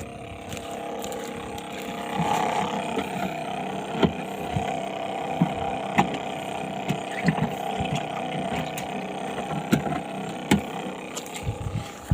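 A motor drones steadily, growing louder about two seconds in and holding until near the end, with scattered light clicks and knocks over it.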